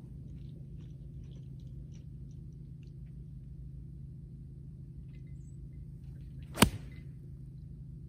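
A single sharp crack of a golf iron striking the ball and turf about two-thirds of the way through; the shot is hit heavy, "a little chunky", taking a divot. A steady low hum runs underneath.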